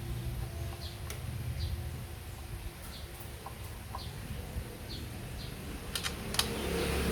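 Faint, repeated short bird chirps over a low steady hum, with a couple of sharp clicks about six seconds in.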